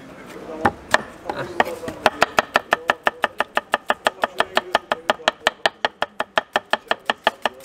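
Knife chopping cooked sheep's head meat on a chopping board: a few scattered chops, then from about two seconds in a fast, even run of chops at about four a second.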